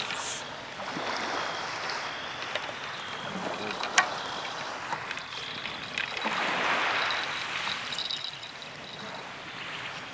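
Small sea waves washing against the shore, swelling and easing twice, with a single sharp click about four seconds in.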